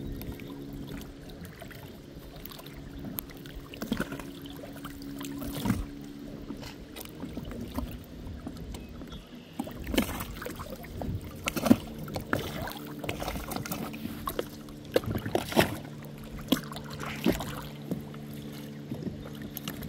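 Water sloshing and slapping in irregular splashes around a boat hull, over a steady motor drone that fades out briefly around the middle and then comes back.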